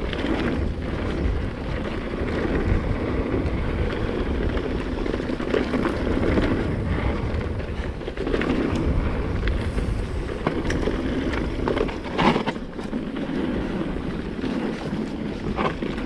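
Mountain bike running fast down a loose gravel and stone trail: steady rumble of tyres over stones mixed with wind on the microphone. Short knocks and rattles from the bike over rocks, the strongest about twelve seconds in.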